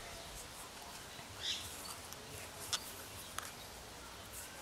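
Faint handling sounds of yarn and a needle being worked on a plastic flower loom as a knot stitch is tied. There is a soft rustle and three light clicks.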